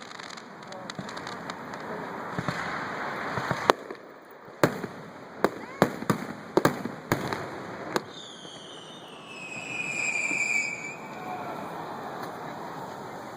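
Display fireworks: a crackling haze, then a quick run of about eight sharp aerial shell bangs in the middle. After the bangs comes a high whistle that dips slightly in pitch.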